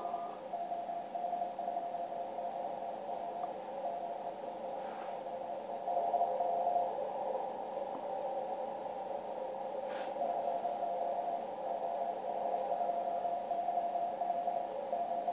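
Morse code (CW) on the 80-metre amateur band, received by a Yaesu FTdx1200 HF transceiver and heard from its speaker: a single-pitched tone keyed on and off in dots and dashes over a hiss of band noise narrowed by the radio's CW filter.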